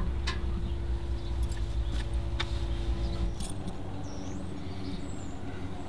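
A steady low mechanical hum, with several sharp clicks over it in the first three and a half seconds. A few short chirps near the end.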